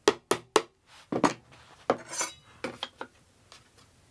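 Mallet tapping the wooden corners of a canvas stretcher frame: a quick run of light, irregularly spaced knocks. The taps fine-adjust the corner joints to bring the frame square.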